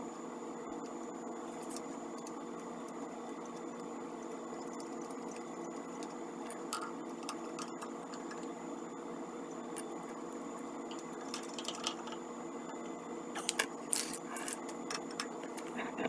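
A steady machine hum throughout, with scattered light metallic clicks and clinks as a muffler and metal parts are handled on a small engine. The clinks come thicker and louder in the last few seconds.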